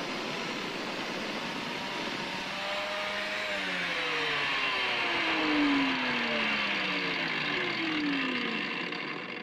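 Angle grinder with a 2.5 mm cutting disc grinding a slot into a Hastelloy X turbine wheel blank. About two and a half seconds in it is withdrawn and winds down, its whine falling steadily in pitch over several seconds.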